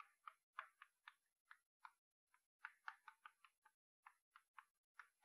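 Faint chalk on a blackboard writing Chinese characters: a string of short, irregular taps and brief scratches, several a second.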